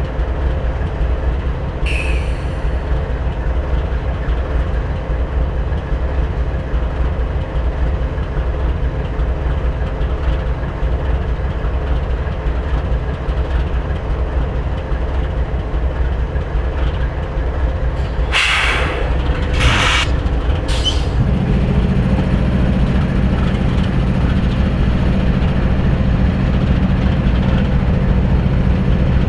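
GE diesel locomotives idling with a steady low rumble. A brief squeak comes about 2 seconds in. Two-thirds of the way through there are three short hisses of air, and after them the engine hum is steadier and stronger.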